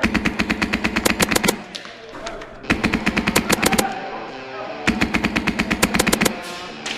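Airsoft gun firing on full auto in three rapid bursts, each about a second long, with short pauses between them.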